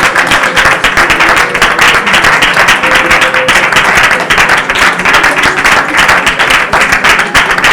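Church congregation clapping loudly and continuously, with music and some pitched voices underneath.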